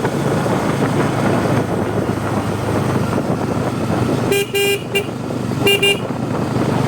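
Bajaj Pulsar N250's 250 cc single-cylinder engine running steadily at cruising speed under road and wind noise, with a horn tooting twice, a longer blast about four and a half seconds in and a short one near six seconds.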